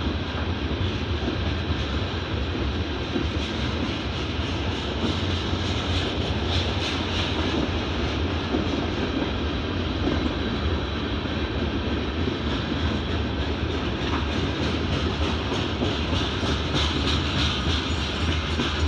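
Freight train cars rolling past: a steady rumble of steel wheels running on the rails.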